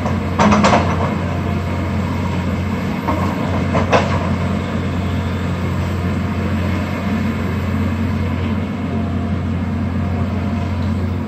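Hydraulic excavator's diesel engine running steadily as it demolishes a house. A few sharp knocks of wreckage come about half a second in, and a louder single knock about four seconds in.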